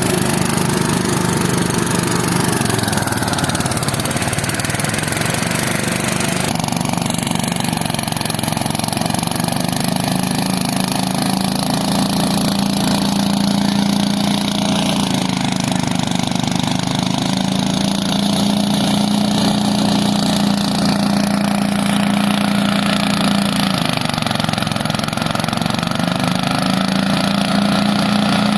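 An engine running steadily, with its pitch sagging briefly a few times before recovering.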